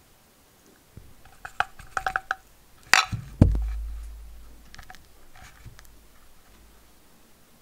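A spatula scraping and tapping against a clear plastic dessert cup as a soft cookie-crumb mixture is pushed in. A run of small clicks and taps comes about one to two seconds in, then a sharp knock and a heavier thump around three seconds in, then a few faint ticks.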